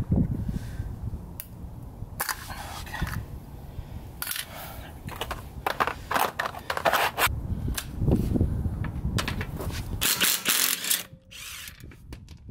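Wheel lug bolts on a car being undone with a tool, in several short bursts of mechanical noise.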